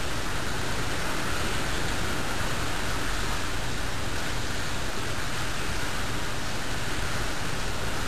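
Steady, even rush of a heavy storm's wind and rain, near hurricane strength.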